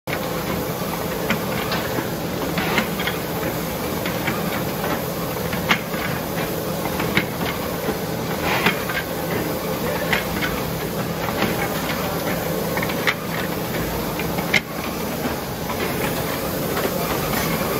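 Sulby perfect binding machine with 15 book clamps running: a steady mechanical hum and hiss, with sharp clicks and clacks at an irregular pace, about one a second, as the clamps travel round the track.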